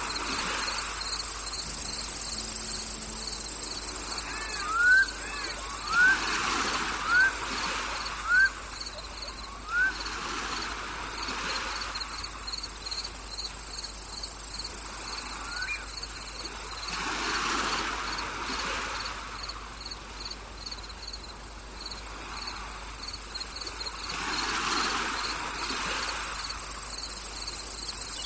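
Crickets and other insects trilling steadily in a nature soundscape, with an evenly repeating chirp over a continuous high drone. About five seconds in, a short rising call sounds five times, roughly a second apart. A soft rushing sound swells and fades every several seconds.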